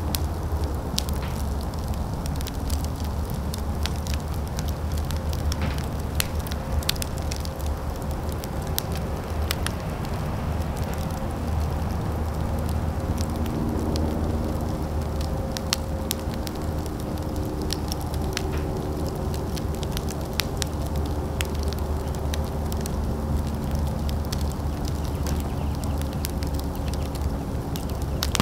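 Open fire burning, crackling with frequent sharp pops over a steady low rumble. A few faint steady tones come in about halfway through.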